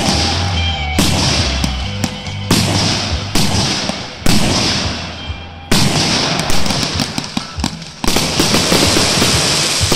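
Fireworks display. Aerial shells burst with a sharp bang every second or so, each followed by a rushing tail. From a little past halfway comes a dense run of crackling, with another big burst near the end.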